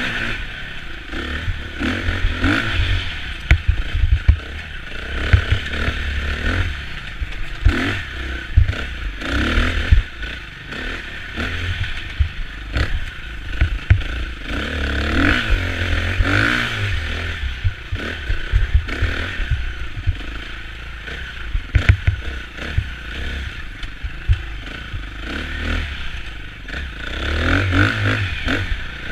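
KTM 350 EXC-F single-cylinder four-stroke enduro engine under hard riding on a rough forest trail, its revs rising and falling every second or two with the throttle. Frequent sharp knocks and clatter come from the bike hitting bumps, roots and ruts.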